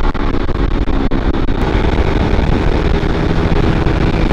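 A 150 cc underbone motorcycle engine running steadily at speed, with wind noise on the microphone.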